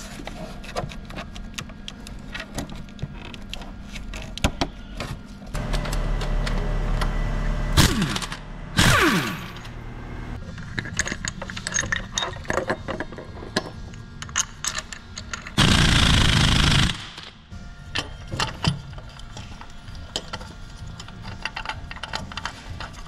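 Hand tools and metal engine parts clicking and rattling during reassembly of the Z18XE engine's front end. A powered tool runs for a couple of seconds about a quarter of the way in and winds down with a falling whine. Past the middle comes one loud, harsh burst lasting about a second.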